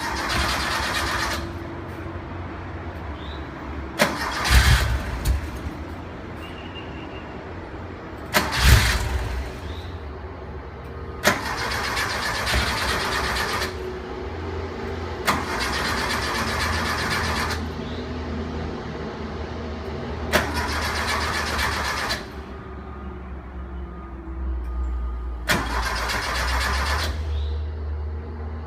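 Porsche 914 2.0's air-cooled flat-four being cranked over and over, about seven tries a few seconds apart, each beginning with a sharp click. The engine is hard to start after an oil change, valve adjustment and new spark plugs.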